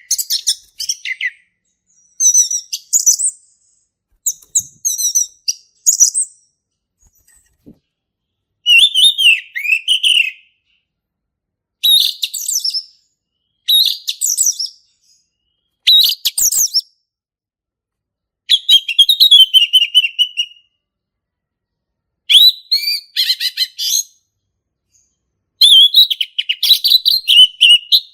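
Male orange-headed thrush singing: a series of short, varied phrases of rapid high notes, each a second or two long, separated by pauses of a second or two.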